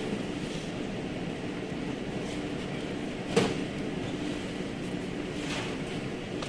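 Steady mechanical hum, with a single sharp knock about three and a half seconds in and a couple of faint hissing strokes.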